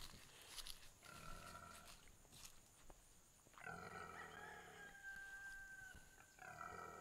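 Berkshire sow growling, faint: a short call about a second in, a long drawn-out one of about two and a half seconds from about halfway, and another near the end.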